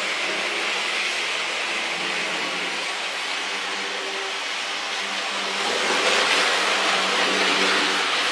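Mehano HO gauge model Thalys train running on its track: a steady electric-motor whine with wheel noise, getting louder about six seconds in as it comes round the near curve.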